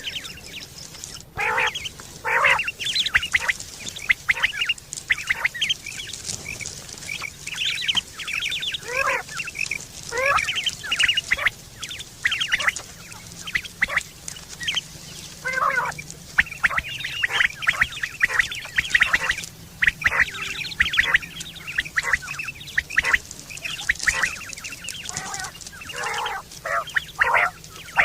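Quail calling over and over, with short, sharp notes coming in quick, irregular runs and often overlapping.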